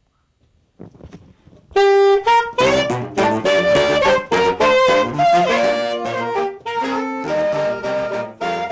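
Saxophone quartet starting to play about two seconds in: a held note, then a quick run of notes in several voices together.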